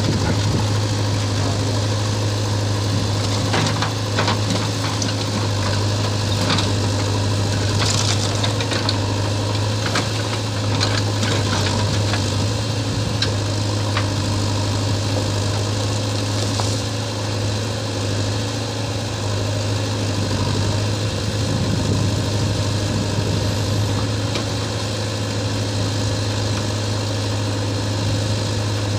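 JCB 3DX backhoe loader's four-cylinder diesel engine running steadily with a low hum, as its backhoe bucket digs through rubble. Scattered knocks and clatter of stone and steel come mostly in the first half.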